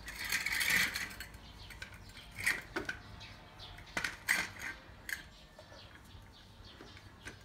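Steel scissor jack being set under a car's side sill on concrete: a scrape in the first second, then a few sharp metallic clicks and clinks as it is fitted to the jacking point.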